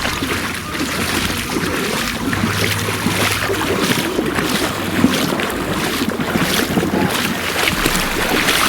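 Wind buffeting the microphone, with a steady wash of sea noise underneath.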